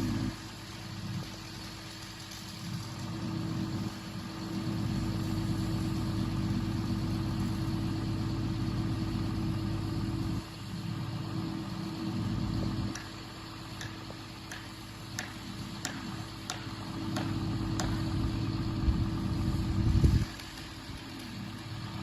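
A machine's engine running, its level rising and falling as the load and throttle change, with a few sharp clicks or knocks in the second half.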